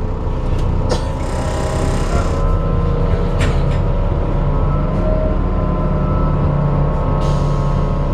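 Alexander Dennis Enviro 400 double-decker bus on a Trident 2 chassis running, heard from on board: a steady diesel engine and drivetrain drone with several held tones above it. Bursts of hiss come about a second in and again near the end, with a couple of brief knocks between.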